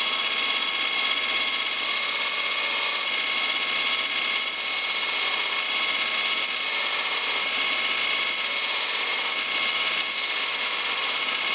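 Belt grinder running at steady speed with a steady whine, its heavy, worn abrasive belt grinding a coil-spring steel punch to bare metal with a continuous hiss.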